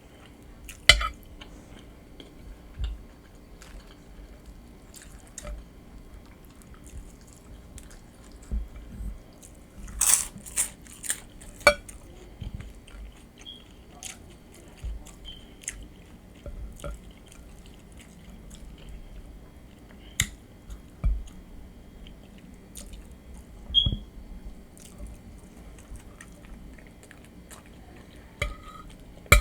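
Someone eating nachos close to the microphone: irregular crunching bites and chewing. One loud crunch comes about a second in, a cluster of louder bites about a third of the way through, and a few more later on.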